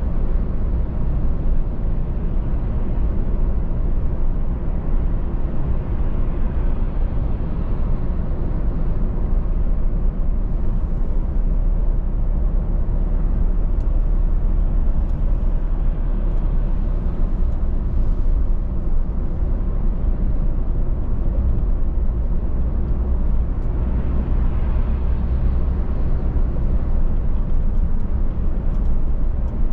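A car driving: steady road and engine noise, mostly a low rumble, even throughout.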